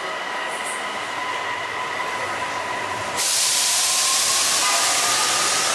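Light-rail train standing at the platform with a steady whine. About three seconds in, a sudden loud hiss of released air starts and holds, shortly before the train pulls out.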